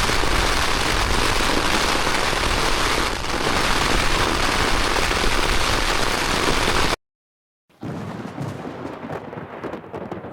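Heavy rain pelting a tent in a thunderstorm, a loud steady hiss. It cuts off abruptly about seven seconds in, and a quieter hiss follows after a short gap.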